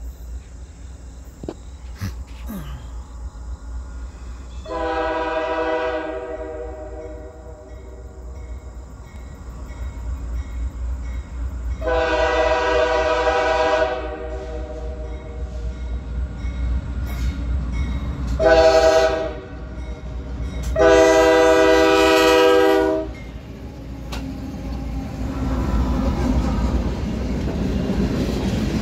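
CSX freight locomotive's air horn sounding the grade-crossing signal: long, long, short, long. Near the end comes the rumble and wheel clatter of tank cars passing close by.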